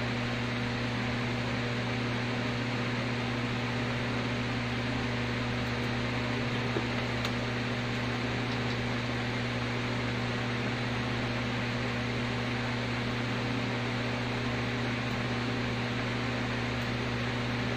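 Steady electric fan noise in a small room: an even hiss over a low electrical hum, with one small click about seven seconds in.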